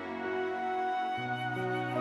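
Slow, sad instrumental background music, a flute carrying the melody over held low notes.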